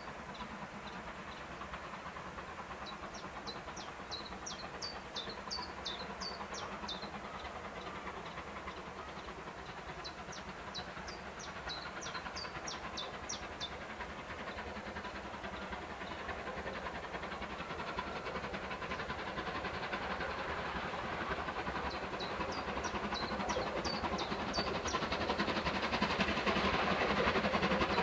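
SR Rebuilt Battle of Britain class steam locomotive No. 34059 approaching with its train: a steady rushing exhaust and running noise that grows louder, most of all in the last several seconds. A small bird chirps in short runs of quick high notes four times over it.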